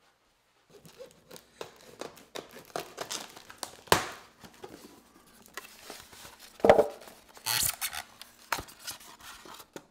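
Cardboard box being opened and an appliance pulled out of its packing: cardboard flaps rustling and scraping, plastic and foam crinkling and rubbing, with sharper knocks about four seconds in and again near seven seconds.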